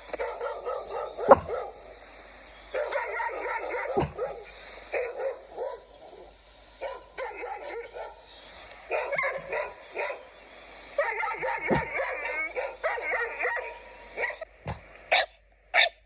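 A dog barking hoarsely, more like a cough than a bark, in bouts of rapid, pulsing calls a second or two long with short pauses between them, then a few single short barks about half a second apart near the end. A few sharp knocks or clicks come in between, the loudest about a second in.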